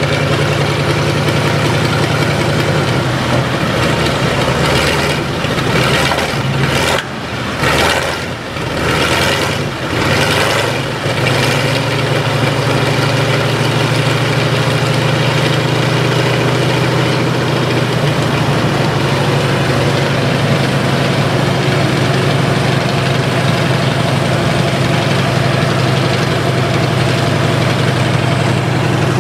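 Wright Continental R975 C4 nine-cylinder air-cooled radial engine of an M4A1 Sherman tank idling. Its note dips and wavers unevenly for several seconds about five to eleven seconds in, then runs steady.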